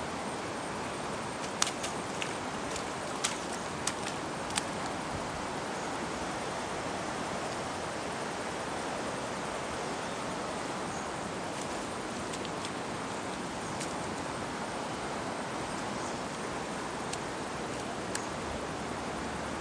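Steady rushing noise of a rain-swollen river in flood, with a few sharp light clicks in the first five seconds and one more near the end.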